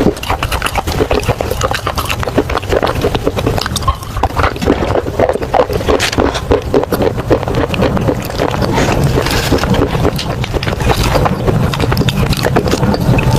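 Pieces of baked clay pot being crunched and chewed close to the microphone, a dense, continuous run of crunches.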